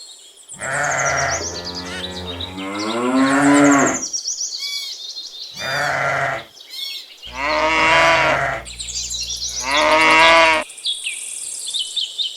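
Farm livestock calling: about five separate mooing and bleating calls, each a second or more long, some rising in pitch. Birds chirp throughout.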